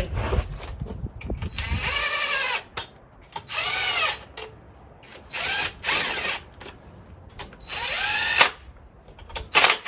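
Cordless power tool driving in the A/C compressor mounting bolts in about five short bursts, the motor's whine bending in pitch through each burst.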